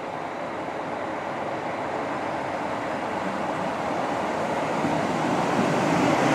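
London Northwestern Railway Class 350 Siemens Desiro electric multiple unit pulling into the platform. Its running noise grows steadily louder as the train draws in and passes close by.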